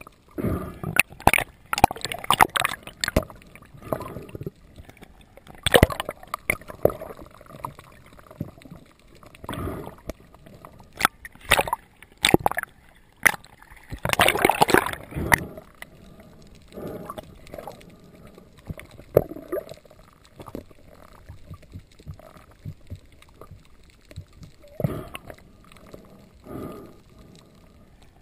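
Underwater sound heard through a GoPro's waterproof housing: water gurgling and rushing past the housing, with irregular sharp clicks and knocks and a longer rush of noise about halfway through.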